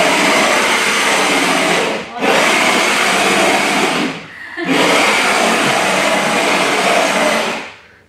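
Small electric motor of a toy remote-control stunt dirt bike whirring at high speed as it drives. The whir cuts out briefly about two seconds in, drops again around four seconds, and dies away near the end as the throttle is let off.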